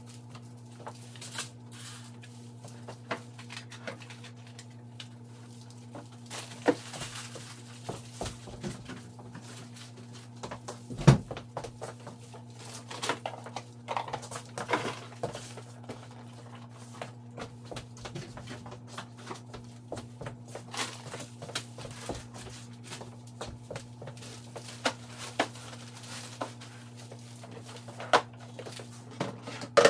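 Kitchen items being handled and set down during cleaning: scattered clinks and knocks, the loudest about eleven seconds in, over a steady low hum.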